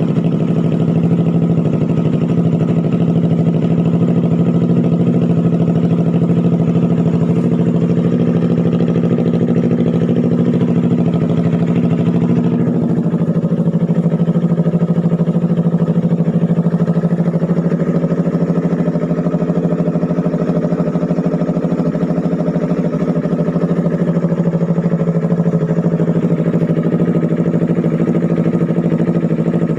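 Yamaha R3's parallel-twin engine idling steadily through an Austin Racing twisted-elbow exhaust with resonator while it warms up. The tone shifts slightly about thirteen seconds in.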